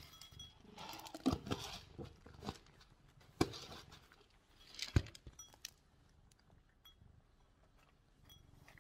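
Dry cat kibble poured into a ceramic bowl, rattling and clinking in scattered clicks over the first few seconds, with a couple of sharper knocks against the bowl. Then a cat eating from the bowl, with faint crunching.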